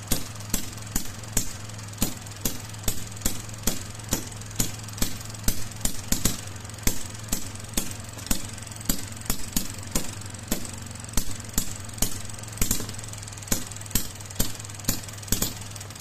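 Small homemade 12 cm³ single-cylinder two-stroke engine running slowly and evenly, firing with a sharp pop about two to three times a second over a steady low hum.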